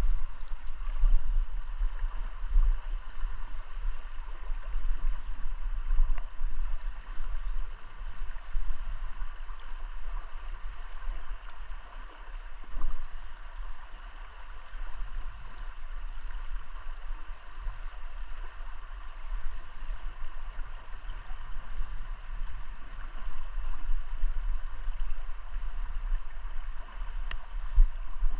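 River current rushing and gurgling over a shallow rocky riffle, steady throughout, with a strong low rumble underneath.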